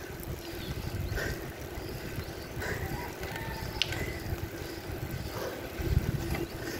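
Wind rumbling on the microphone while riding a mountain bike uphill, with a few faint clicks and rattles from the bicycle.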